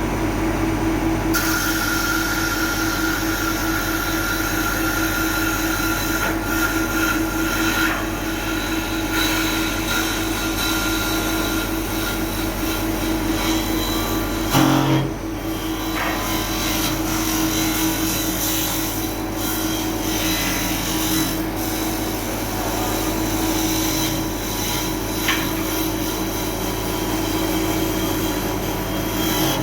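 CNC wood lathe running and cutting wood, a steady machine hum with the rasp of the tool on the timber, briefly louder and changing about halfway through.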